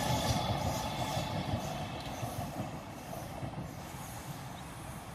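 Southern electric multiple-unit passenger train running along the line, its wheel and motor noise fading steadily as it draws away.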